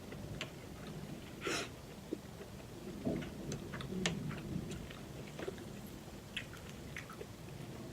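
A person chewing seafood-boil food close to the microphone, with scattered small clicks and crackles and a brief noisier burst about a second and a half in.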